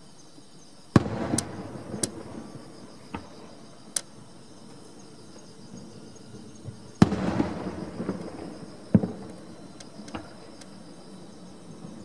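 Aerial firework shells bursting: two loud bangs, about a second in and about seven seconds in, each trailing off over a second or so, with a few smaller sharp pops between them.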